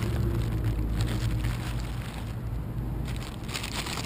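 Kite canopy's ripstop fabric crinkling as it is handled, in bursts near the start and again near the end, over a steady low rumble of wind on the microphone.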